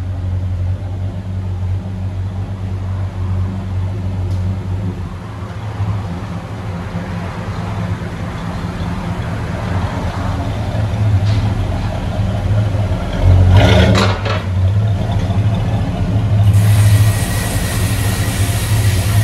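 1971 Chevy Chevelle SS V8 idling through a true dual exhaust with 2 1/4-inch pipes, a custom H-pipe and Flowmaster Super 10 mufflers: a steady, deep exhaust note, with one brief louder surge about two-thirds of the way through.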